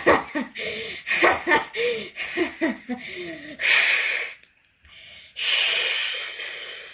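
A child's voice making wordless, growly vocal noises: a quick run of short rising-and-falling sounds for about three and a half seconds, then two long wheezing, hissing breaths, the second fading away.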